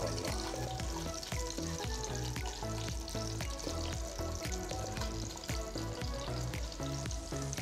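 Ribs sizzling as they fry in oil, being browned before the dolma is layered on them, over background music with a steady beat.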